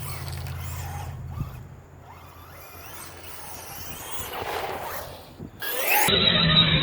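Electric 1/8-scale RC truggy with a brushless motor, driving on a dirt track: the motor's whine rises and falls with the throttle over the noise of the tyres. About six seconds in, a much louder, steady sound cuts in suddenly.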